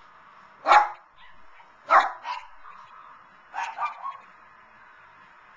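A Lhasa Apso barking at the television in short, sharp barks: one about a second in, two close together at two seconds, then a quick run of three around four seconds.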